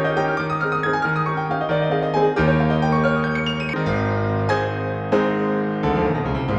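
Background piano music: a melody of struck notes over sustained chords, fading out just after the end.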